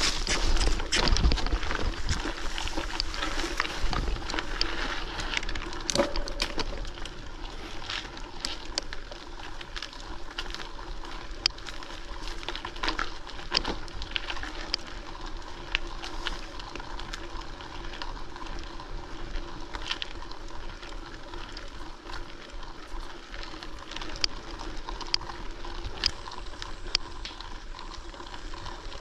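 Electric mountain bike riding along a gravel forest road: steady tyre noise with frequent clicks and rattles. It is heavier and louder in the first few seconds, with low knocks, then settles.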